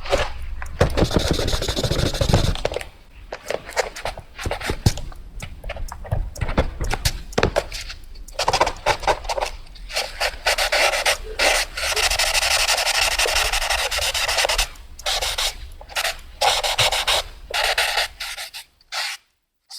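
Fast drawing on paper: a drawing tool scratching across the paper in quick, irregular strokes, with one longer unbroken stroke about twelve seconds in.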